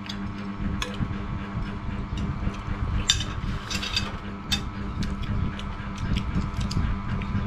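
Metal spoons clinking against ceramic plates a few times, the clinks bunched near the middle, over a steady low hum.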